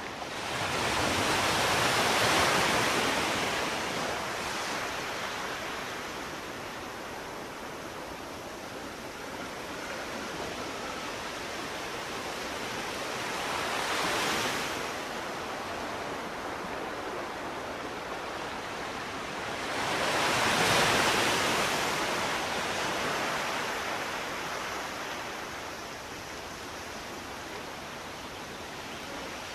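Sea waves breaking on a shore: a steady wash of surf that swells three times, near the start, a weaker one midway, and a strong one about two-thirds through, each falling back as it runs out.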